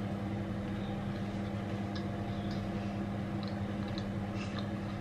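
A steady low hum, with faint, scattered small mouth clicks of someone chewing a bite of pizza.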